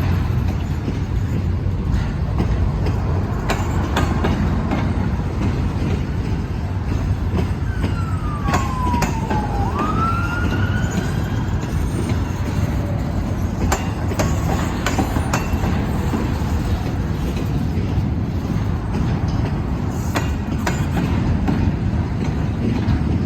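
A CSX train rolling past, with a steady low rumble and scattered clicks of wheels over rail joints. About eight seconds in, a brief whine slides down and then back up.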